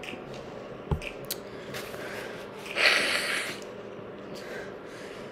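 Rustling and handling noises: a soft knock about a second in, two light clicks just after, then a short rustle around three seconds in.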